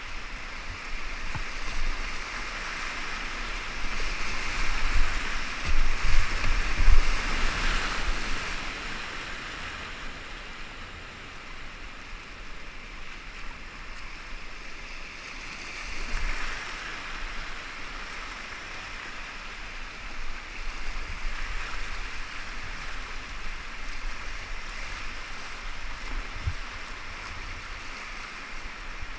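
Rushing whitewater of a river rapid heard from a kayak running it, swelling louder about four to eight seconds in and again briefly around sixteen seconds, with low thumps on the microphone.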